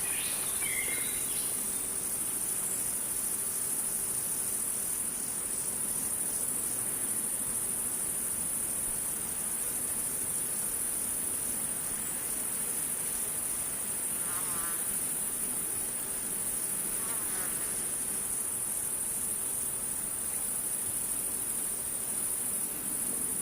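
A steady, high-pitched chorus of night insects such as crickets, with a slight regular pulse. Two faint short warbling calls come from another animal, about 14 and 17 seconds in.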